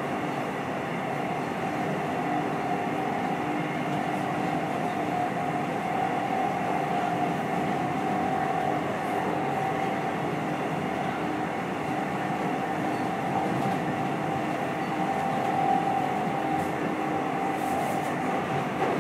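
Electric suburban passenger train running at speed, heard from inside the carriage: a steady rolling noise of wheels on track with a constant motor whine over it.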